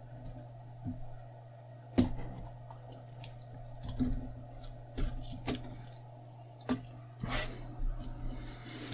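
Scattered light clicks and taps of a laptop LCD panel being handled and lifted out of the lid, the sharpest about two seconds in, with a brief rustle near the end. A steady low hum runs underneath.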